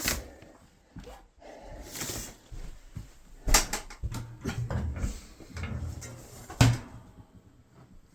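Household handling noise: three sharp knocks or clunks, about three seconds apart, with rustling and shuffling in between.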